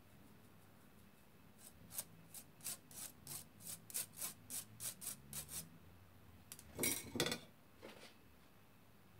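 Fingers rubbing cocoa powder through a fine metal mesh sieve, a steady run of soft rasping strokes about three a second, then two louder, harsher strokes about seven seconds in.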